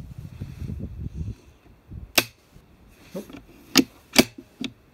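.22 LR rifle at a shooting session: three sharp cracks, one about two seconds in and a close pair near the end, after a low rumble in the first second or so.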